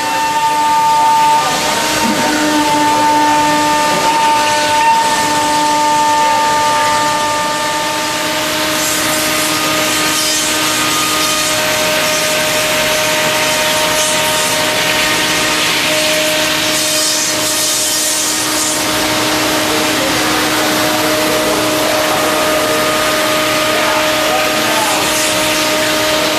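Komo CNC machine milling an aluminum plate: a steady whine from the spindle and cutter, with a hiss over it that grows busier about a third of the way in.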